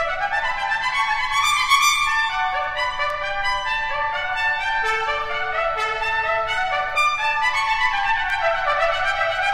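Music led by a trumpet playing a melody of held notes that move in steps, with other instruments sounding underneath.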